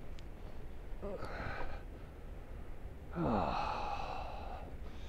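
A man's breathy sigh, falling in pitch, about three seconds in, after a shorter breathy sound about a second in. A steady low rumble runs underneath.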